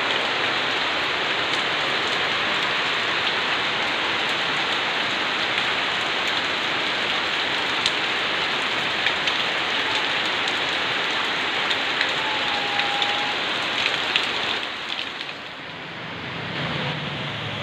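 Steady rain falling: a dense, even hiss with scattered sharper drop ticks. It eases briefly near the end.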